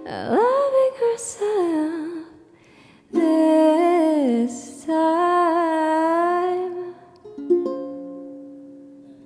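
A girl's voice sings a wordless closing melody with wavering held notes and gliding pitch over a ukulele. A final ukulele chord is struck about seven and a half seconds in and rings out, fading away.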